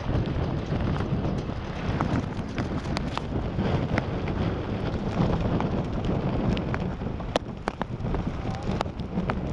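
Strong wind buffeting the microphone with a steady low rumble, stirred up by a large tornado passing close by, while scattered sharp ticks of raindrops strike the vehicle and microphone, more of them in the second half.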